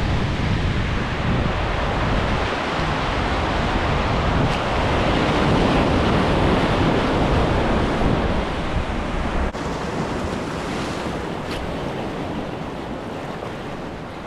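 Ocean surf washing and wind rushing, with wind buffeting the microphone. There is a slight drop in level about two-thirds of the way through.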